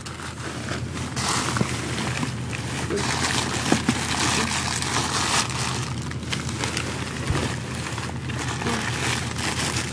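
Rustling and clattering of trash being rummaged through by hand in a dumpster, with a few sharp clicks, over a steady low hum.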